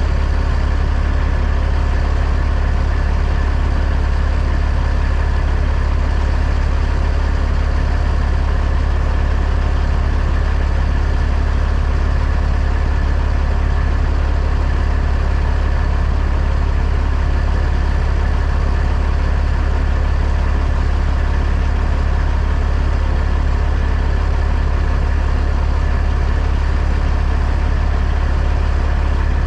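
Heavy truck engine running at an unchanging speed: a steady low drone with no change in pitch or level.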